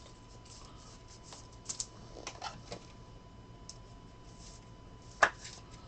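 Trading cards being handled: faint scattered taps and light clicks, with one sharper click about five seconds in.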